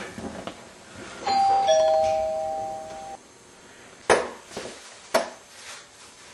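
Two-note ding-dong doorbell chime, a higher note then a lower one, ringing for about two seconds before cutting off abruptly. Then two sharp thumps about a second apart.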